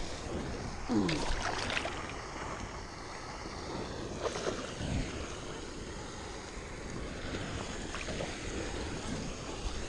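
Steady splashing rush of a pond's water fountain, with wind buffeting the microphone. A brief louder burst comes about a second in.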